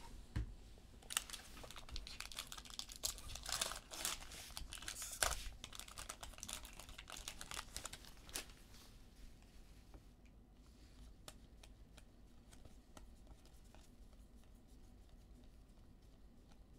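Plastic wrapper of a trading-card pack being torn open and crinkled by hand. Sharp crackles run for the first eight seconds or so, then die away to faint ticks as the cards are handled.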